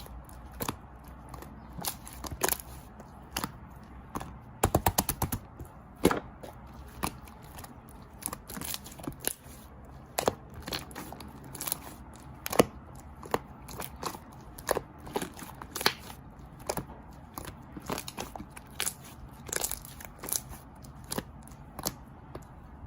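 Crisp crunching clicks close to the microphone, irregular at one or two a second, with a quick run of about ten clicks about five seconds in.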